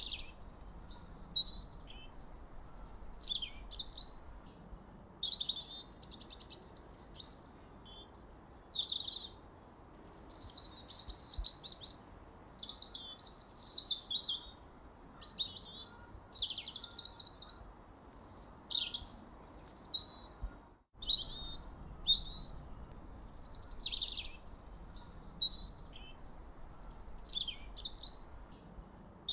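Songbirds singing: a continuous run of quick high chirps and falling trills over a faint low hiss, with the sound cutting out for a split second about two-thirds of the way through.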